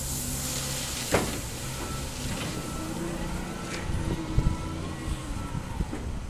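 Diesel engine of an SDLG wheel loader running under load, with crushed stone hissing as it pours from the bucket into the steel bed of a dump truck at the start. A sharp knock comes about a second in.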